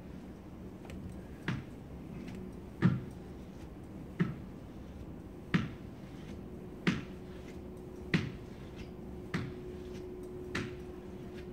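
A sharp tap repeating at an even pace, about one every second and a quarter, over a low steady room hum. A faint steady tone comes in about halfway through.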